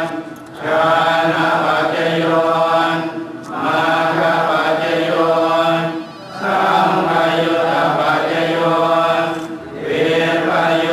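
Buddhist monks chanting together in unison on a steady low note. The chant comes in phrases of about three seconds, each broken by a short pause for breath.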